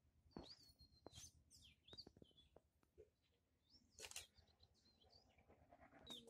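Faint chirping of small birds: several short, high calls, some swooping down in pitch, with a few sharp clicks among them.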